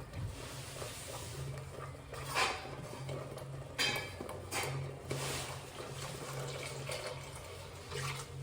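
A spoon scraping and stirring in a metal cooker pot as ground masala paste fries in oil, with several short scrapes and clatters about two to five seconds in over a low hum.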